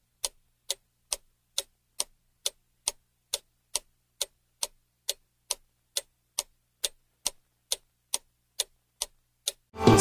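Clock ticking sound effect used as a countdown timer for guessing, with steady sharp ticks a little over two per second.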